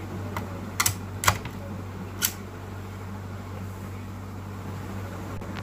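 A steady low electrical hum, with a few sharp clicks in the first two and a half seconds.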